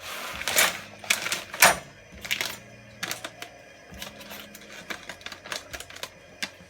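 A rapid, irregular run of sharp clicks and light knocks, like small objects being handled, with a burst of rustling in the first second.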